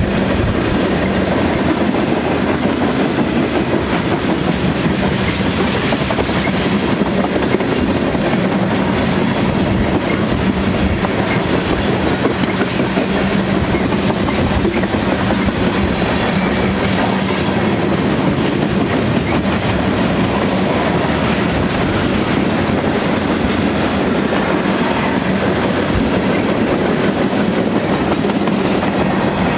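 Freight cars of a mixed freight train (tank cars and covered hoppers) rolling past at close range: a steady rumble of steel wheels on rail with clacking over the rail joints and a steady low drone underneath.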